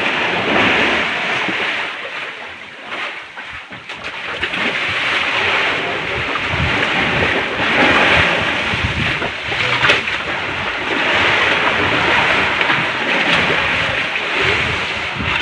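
Sea water washing and splashing around a small fishing boat, a rushing sound that swells and eases every couple of seconds, with a few sharp knocks on deck.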